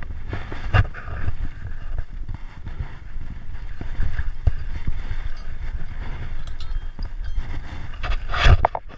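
Wind rumbling on a head-mounted GoPro's microphone, with scattered clicks and knocks as climbing rope and steel cable are handled. A louder rustling scrape comes near the end.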